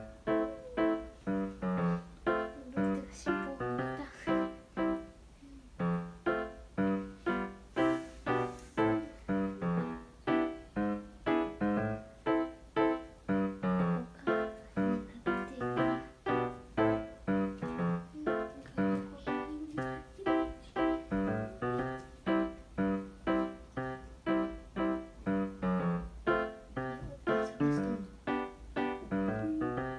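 Background piano music: a gentle melody of evenly paced notes, about two a second, each ringing and fading.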